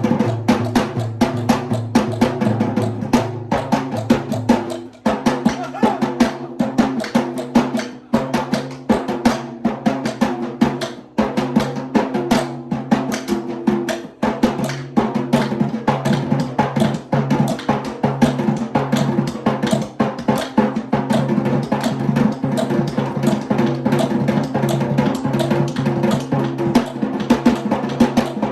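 A Sri Lankan traditional drum ensemble, including Kandyan drums, thammattama, daula and yak bera, plays a fast, dense rhythm over a held low pitched note that shifts about five seconds in.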